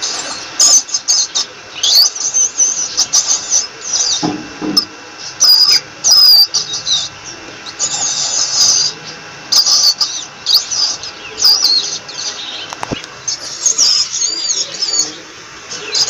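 Rat squeaking: rapid clusters of short, high-pitched squeaks and chirps with quick rising and falling glides, broken by brief pauses, with a few sharp clicks.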